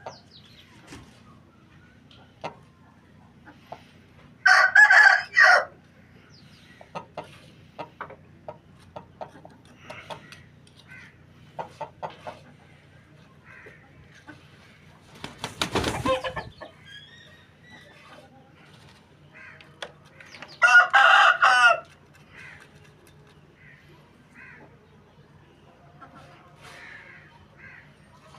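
Aseel rooster crowing twice, each crow about a second long, one around five seconds in and one around twenty-one seconds in. Short clucks and clicks are scattered between the crows, with a noisier burst about midway and a faint steady low hum underneath.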